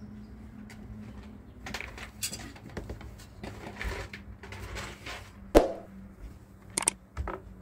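Scattered clinks and knocks of kitchen utensils and dishes being handled, with one sharper knock about five and a half seconds in.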